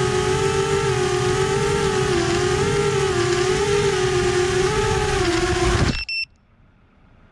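Small drone's propellers humming steadily as it hovers, the pitch wavering slightly as the motors adjust. About six seconds in the motors cut off abruptly, with a brief beep.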